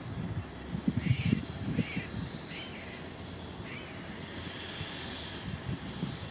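Gull-billed tern calling: four short calls about a second apart, over a steady outdoor hiss. Low thumps come in the first two seconds and again near the end, and are the loudest sounds.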